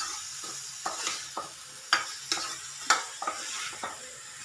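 Spatula stirring green beans and spice powders frying in oil in a kadai: a steady sizzle, with the spatula knocking against the pan about twice a second.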